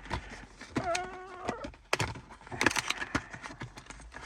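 SSD retail packaging being forced open by hand: a run of sharp plastic clicks and crackles, with a brief buzzing tone about a second in.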